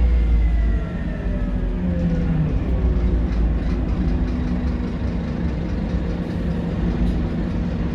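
Scania K230UB bus heard from on board: the low rumble of its engine and drivetrain, with a drivetrain whine falling in pitch over the first few seconds as the bus slows, then running on steadily.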